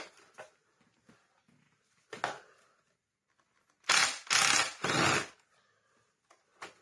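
A stuck metal screw being worked out of a metal bracket on a Hoover Junior vacuum cleaner with tools: a few light clicks and knocks, then three loud, harsh grating bursts about four seconds in.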